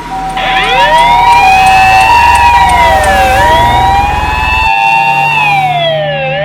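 Japanese ambulance electronic siren: the two-tone "pi-po" alternation with a wail laid over it. The wail starts about half a second in, rising and falling twice.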